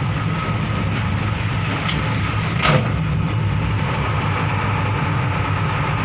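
Bus engine running with a steady low drone and road noise, heard while riding aboard; a single brief knock comes about two and a half seconds in.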